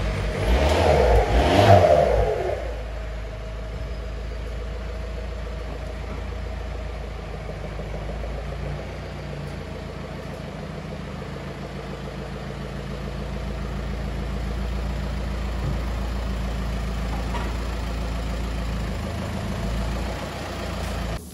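VW Caddy 2K van's diesel engine revving briefly in the first couple of seconds, then running at a steady low idle as the van is driven slowly.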